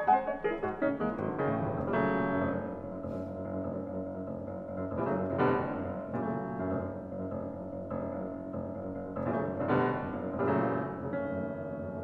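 Piano music, a run of single notes and chords with a few more strongly struck chords about two, five and ten seconds in.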